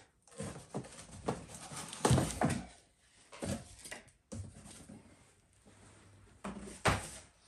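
Unboxing handling noise: a foam-cornered steel battery safe sliding and being lifted out of a cardboard shipping box, with irregular scraping and rustling of cardboard and foam and a few knocks, loudest about two seconds in and again near the end.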